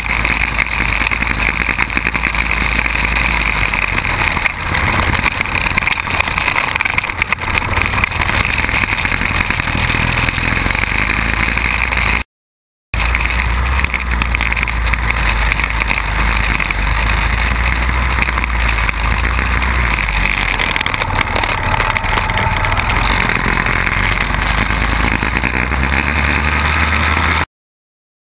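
Quad bike engine running at speed, heard from an onboard camera, mixed with heavy wind noise on the microphone. The sound cuts out completely twice for under a second.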